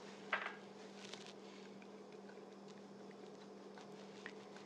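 Quiet kitchen sounds of heavy cream being poured and scraped from a measuring cup into a metal bowl: a short knock about a third of a second in, then a few faint taps, over a steady low hum.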